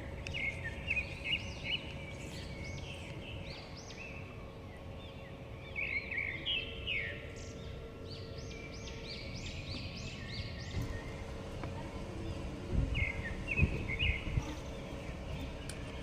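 Birds chirping in many short, arched calls over a steady outdoor background hum, with a few low rumbling bumps about thirteen seconds in.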